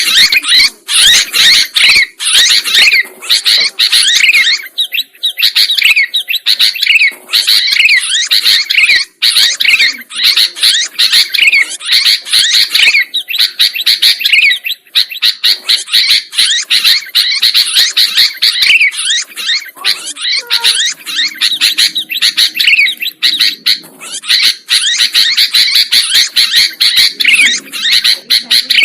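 Sooty-headed bulbul (kutilang) calling and singing vigorously, a dense stream of rapid chirps and short whistled notes with hardly a pause.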